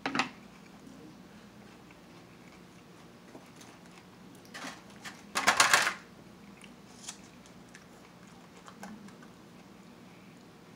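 Handling of a styrofoam takeout box, plastic fork and small plastic sauce cup: scattered light clicks and knocks, with one loud, noisy half-second burst a little past the middle.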